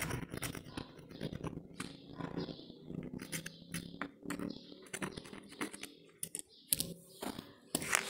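Irregular small clicks and scrapes of a screwdriver tip working on the small plastic housing of a washing machine thermo-actuator, with a faint steady hum behind.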